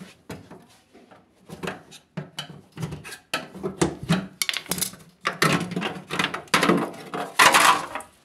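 Plastic lower front panel of an LG washer dryer being pried off with a flat screwdriver: a string of clicks and knocks as its clips let go and the plastic clatters, louder and denser in the second half.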